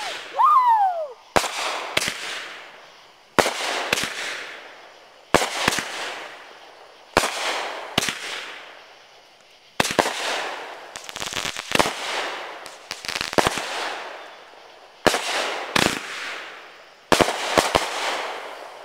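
Consumer aerial fireworks going off in a steady series, a sharp bang about every two seconds, often doubled, each trailing off in a fading crackle. A denser run of crackling pops comes about two-thirds of the way through.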